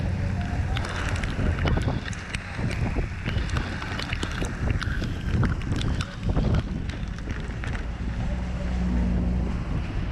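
Strong gusty wind buffeting the microphone: a low rumble with many scattered sharp clicks and knocks.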